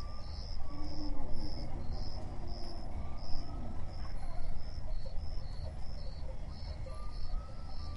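An insect chirping in short, high pulses, about two a second, over a steady low rumble.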